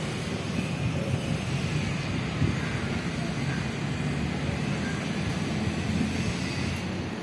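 Steady low rumble of background noise.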